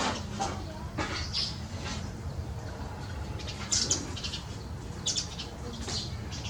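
A flock of birds giving many short, high chirps, scattered irregularly, with a few brief rustles near the start and about a second in.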